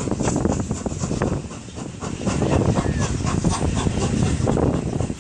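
Passenger coaches of a steam-hauled train rolling past on the track, wheels clattering, with wind on the microphone.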